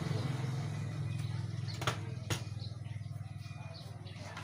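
Steady low hum with two sharp clicks about two seconds in, from tool work as rusted transistors are pulled off an amplifier circuit board.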